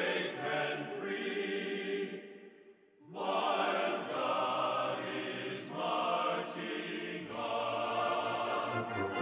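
Background music with choral singing: sustained voices that fade out briefly about a third of the way in, then return, with a low note added near the end.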